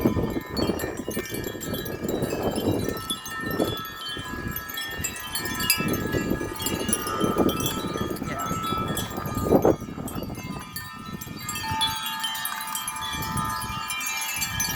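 Several wind chimes ringing continuously in strong, gusty wind, their tones overlapping. Wind buffets the microphone in gusts, with one sudden louder burst about ten seconds in.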